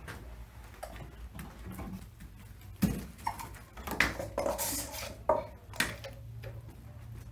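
Ring-tailed lemurs jumping about on wooden branch perches: a run of sharp knocks and thuds as they land and climb, the first and loudest about three seconds in, with light rustling between.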